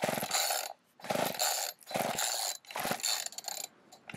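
Homelite two-stroke gas chainsaw being pull-started cold with the choke out: about four quick pulls on the recoil starter cord, roughly one a second, each a short burst of the engine cranking over, and the engine does not catch.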